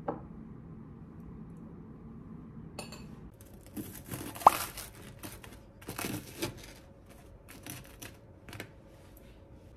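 A ceramic knife sawing through crisp toast on a wooden cutting board: a run of crackly crunching strokes, with one sharp knock of the blade about four and a half seconds in. A short click at the very start.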